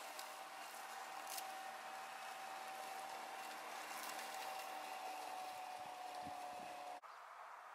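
Robotic lawn mower running across the grass: a steady electric whine from its motors, drifting slightly lower in pitch, over a faint hiss. The sound drops away abruptly near the end.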